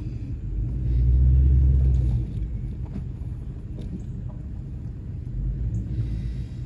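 Low rumble of a vehicle driving over a bumpy road. It swells louder for about a second and a half starting about a second in, and again briefly near the end.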